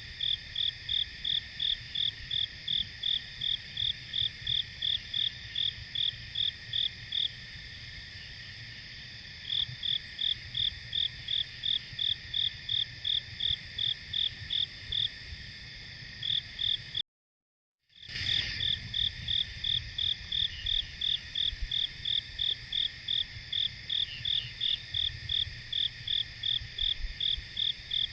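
Night insect chorus: one insect chirps in a steady rhythm of about two and a half high chirps a second over a constant high hum of other insects. The chirping stops for about two seconds a third of the way through, and all sound cuts out for about a second just past the middle.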